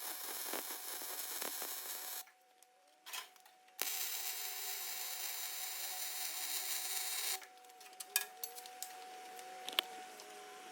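Electric welding arc sizzling in two runs, the first about two seconds long and the second about three and a half, with a short pause between: stitch welds over cracks in a combine's cast tailboard.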